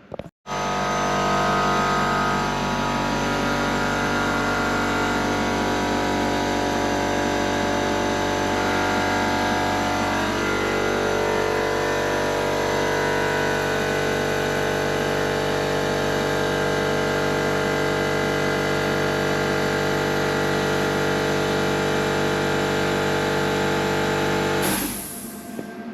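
A loud, steady machine drone, a hum of many held tones with a brief wavering in pitch partway through, that cuts off shortly before the end.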